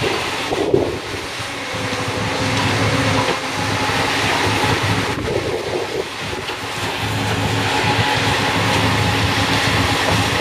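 Heavy tyre-processing machinery running steadily, a continuous rough mechanical noise over a low hum.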